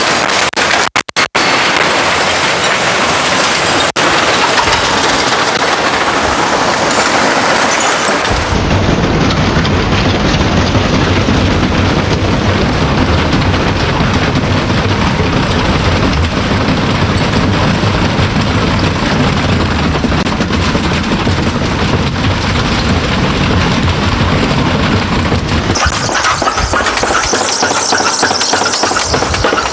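Electrolux washing machine shaking violently in an off-balance spin, a loud continuous clattering and rattling. About eight seconds in it turns heavier and deeper, and it changes again near the end.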